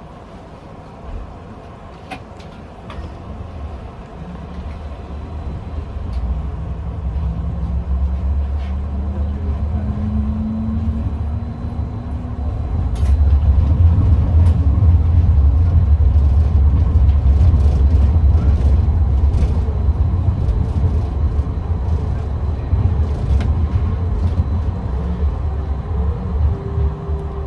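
Tram pulling away and accelerating: the electric traction motors' whine rises in pitch, then a loud low rumble of steel wheels on rails takes over about halfway through, with scattered clicks and knocks.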